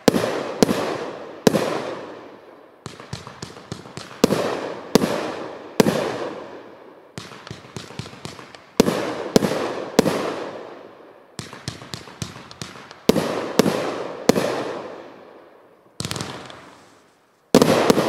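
A 500-gram, 21-shot 'Red Light District' firework cake firing in sequence. Sharp bangs of shells launching and bursting come every half second to a second and a half, each trailing off over about a second, with smaller pops between them. A short lull near the end comes before a final loud bang.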